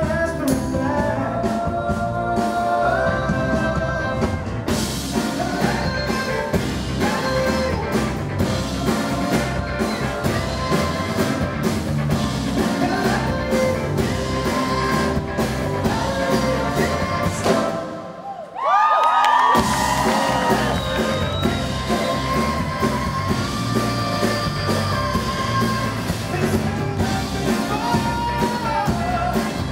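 Live rock band playing with a male lead singer and drums, amplified through the PA. The music drops out briefly about two-thirds of the way through, then the band comes back in.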